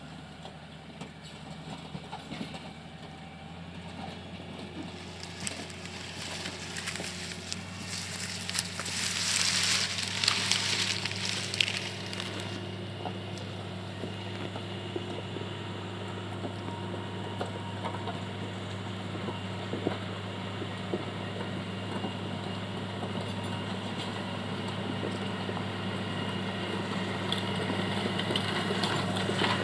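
Komatsu GD511A motor grader's diesel engine running steadily, growing slowly louder, with a louder rushing, crackling stretch from about six to twelve seconds in.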